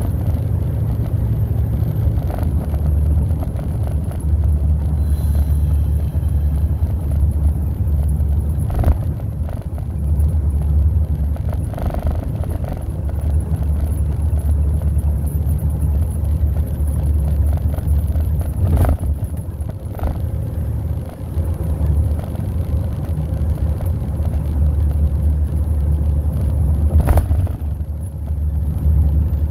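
Steady low road and engine rumble heard from inside a vehicle's cab while cruising on a highway, with a few short knocks now and then.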